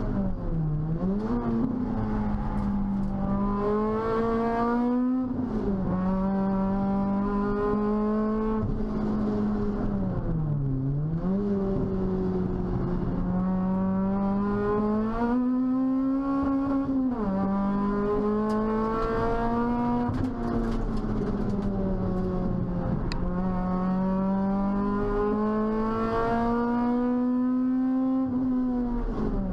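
Toyota Celica T-Sport's 1.8-litre four-cylinder VVTL-i engine heard from inside the cabin at full throttle on track: its pitch climbs steadily through each gear and drops suddenly at each upshift, and falls away twice as the car slows for bends before accelerating again.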